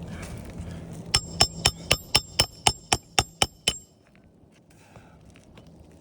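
A hammer striking metal in a quick run of about eleven ringing blows, roughly four a second, starting about a second in and stopping just before the four-second mark, as roofing nails are worked loose from old shingles.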